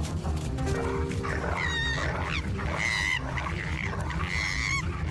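A dog growling in a low, continuous rumble while a koala under attack screams in distress: three high, wavering cries about a second apart. Music plays faintly underneath.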